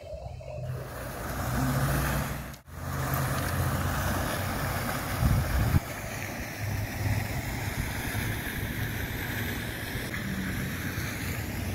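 Steady outdoor noise with a low wind rumble on the phone's microphone and a rushing hiss. It cuts out briefly about two and a half seconds in and swells once around the middle.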